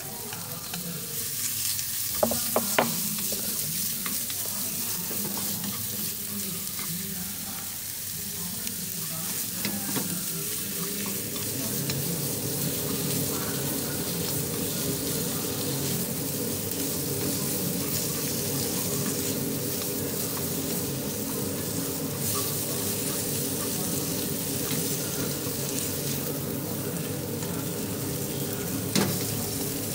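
Duck meat and sliced lemongrass sizzling in a frying pan as they are stir-fried over high heat, a steady frying hiss. A few sharp clicks come near the start, about ten seconds in, and near the end.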